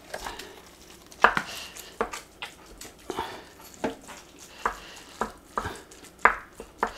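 Wooden spoon breaking up raw ground turkey in a slow-cooker pot: irregular knocks of the spoon against the pot, about ten in all, with short scraping between them.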